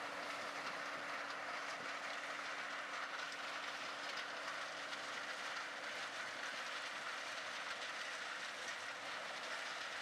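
New Holland CR9080 combine harvester running under load while harvesting corn: a steady, dense mechanical noise with a steady low hum beneath it.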